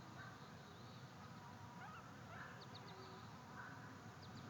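Faint, short bird calls over a steady low outdoor rumble, with a few quick high chirps in clusters.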